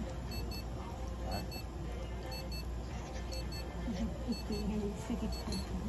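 Electronic alarm beeping steadily: a quick group of two or three short high beeps about once a second, over a steady low hum.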